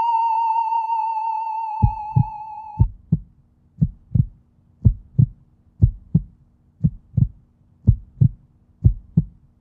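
A high, wavering musical tone fades and cuts off about three seconds in. Over its tail a heartbeat sound effect begins: paired low thumps, lub-dub, about once a second.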